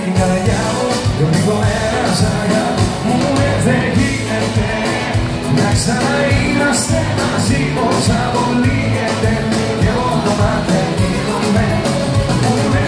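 Live band playing amplified music, with keyboard, electric guitars and drums and a steady drum beat.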